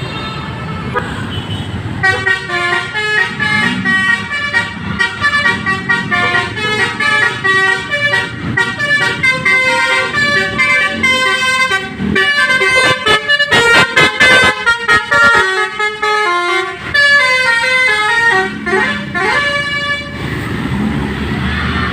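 Bus telolet horn, a multi-tone musical air horn of the Basuri type, playing a loud tune of short stepping notes. It starts about two seconds in and runs until near the end.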